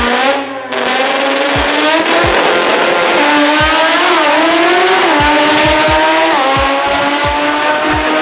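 Drag car's engine at full throttle on a pass, its pitch climbing and dropping back at each gear shift, over a music track with a deep bass beat.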